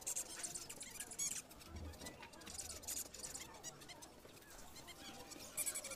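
Small caged finches chirping, many short high-pitched calls overlapping in bursts, busiest at the start and again near the end.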